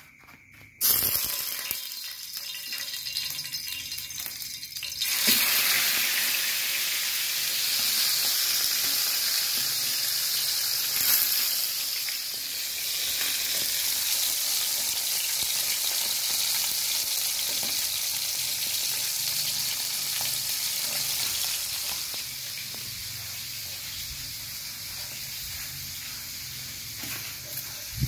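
Koi fish frying in hot oil, a steady dense sizzle. It starts suddenly about a second in, gets louder about five seconds in, and eases off a little in the last quarter.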